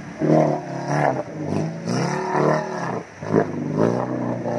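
Off-road 4x4's engine revving up and down under load as it churns through a deep, muddy river crossing.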